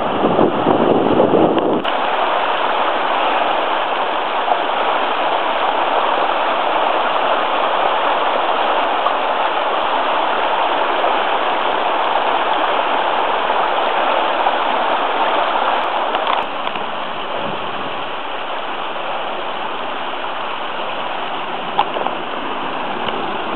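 Water from a burst canal supply pipe rushing steadily down a slope over soil and broken brush, a little quieter after about sixteen seconds. A heavier low rumble runs under it for the first two seconds.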